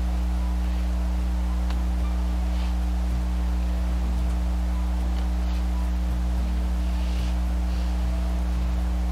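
Steady low hum with a few fixed tones above it, unchanging throughout, and faint soft taps and rustles of cookies being pressed out of a silicone mould.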